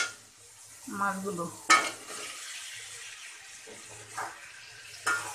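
Pieces of snakehead (shol) fish sizzling as they go into hot oil and turmeric-chili paste in a metal kadai, with a sharp clatter about two seconds in and a spatula stirring through a steady frying hiss.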